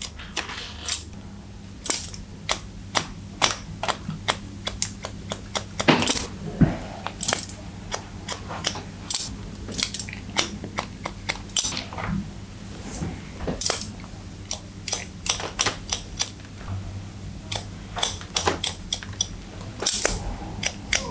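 Barber's scissors snipping wet hair, a long run of short crisp cuts at an uneven pace of one to three a second, as choppy layers are cut into a fringe.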